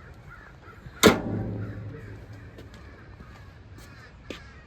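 A sheet-metal cover on a mini excavator banging shut: one loud metal bang about a second in that rings out for about a second, then a couple of faint clicks near the end.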